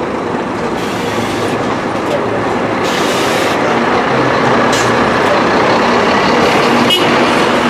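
Scania-chassised Marcopolo Paradiso 1800DD double-decker bus with its engine running, a steady drone that grows gradually louder. A short hiss comes about five seconds in and a sharp click near the end.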